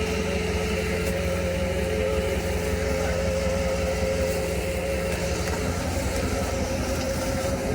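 Bobcat S76 skid steer with a snowblower attachment running steadily under work, a constant engine rumble with a steady, slightly wavering whine over it.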